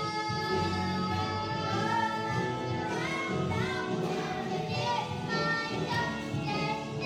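Young voices singing a musical-theatre song together over recorded backing music, with held notes that glide between pitches.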